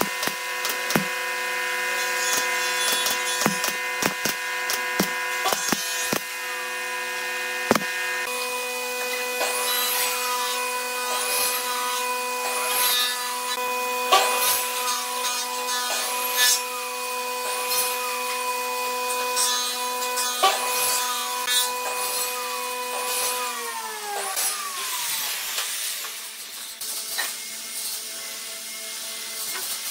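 Pneumatic brad nailer firing a quick series of sharp shots into pine ring segments during the first eight seconds, over the steady hum of a motor that winds down with falling pitch about 24 s in. In between come repeated rubbing strokes on wood, about one a second.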